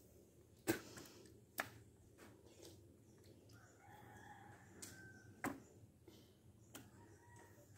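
A rooster crowing faintly, one long call about four seconds in and a weaker one near the end. Four sharp clicks stand out louder over the otherwise quiet background.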